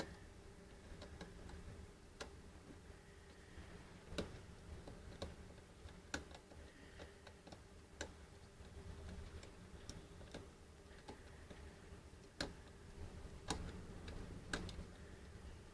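Combination wheels of a Master Lock key safe being turned notch by notch, giving faint, irregular clicks as each wheel is worked to feel for its flat spot while decoding the combination. A low steady hum runs underneath.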